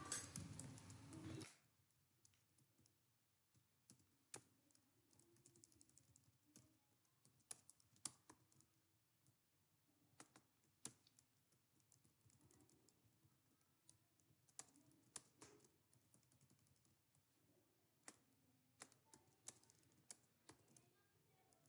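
Faint computer keyboard keystrokes, scattered and irregular, a few at a time with pauses between.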